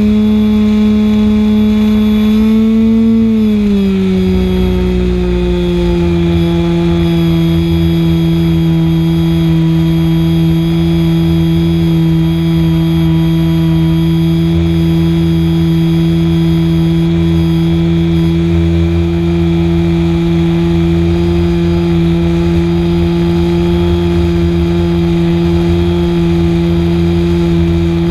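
An RC plane's SuperTigre G51 two-stroke glow engine, heard from on board, running at a steady high pitch in flight. It dips slightly in pitch about three seconds in and then holds steady, with wind rushing on the microphone underneath.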